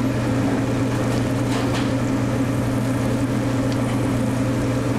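Shrimp sizzling in butter in a stainless steel sauté pan, a steady hiss with a brief louder crackle about a second and a half in, over a steady low hum.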